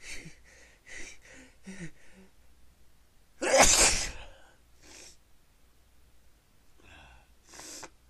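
A person sneezing once loudly about three and a half seconds in, preceded by several quick, sharp breaths; a couple of softer breaths follow.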